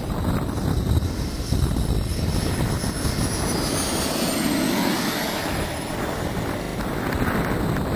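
Twin model gas-turbine engines of a scratch-built de Havilland DH110 whining as the model passes low and lands. The high whine falls slowly in pitch over a few seconds, over a broad rushing noise.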